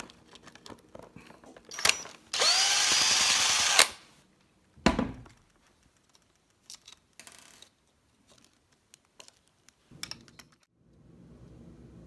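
Small power screwdriver runs for about a second and a half, backing a Phillips screw out of an ignition lock housing's plastic cap. A single thump follows about five seconds in, then a few light handling clicks.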